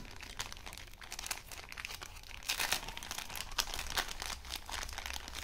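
Small clear plastic accessory bag crinkling as it is handled, in short irregular crackles that are thickest around the middle.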